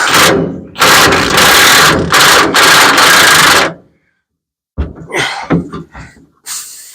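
Powered wrench run in several loud bursts of a second or so each, loosening an old rear shock absorber nut. After a short pause there are smaller knocks and rattles of metal and tools, and one more short burst near the end.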